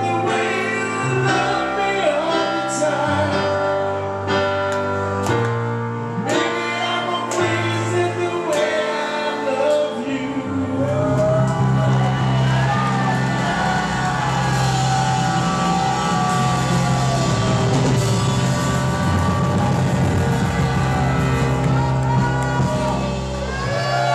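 Live rock band, electric guitars and bass, playing with a man singing. For the first ten seconds or so the band strikes separate chords, then settles into one long held chord with the voice wailing over it.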